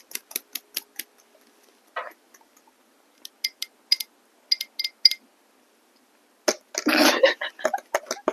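Fingernails tapping close on a microphone for ASMR: a quick run of sharp clicks, then a handful of separate taps with a light ringing tone, and about a second and a half of scratching near the end.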